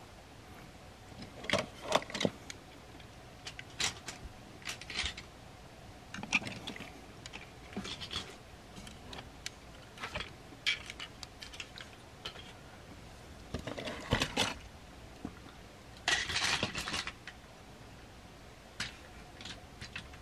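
Hard plastic action figures clicking and clacking in irregular clusters as they are picked up, moved and set down. A longer rattle comes about sixteen seconds in.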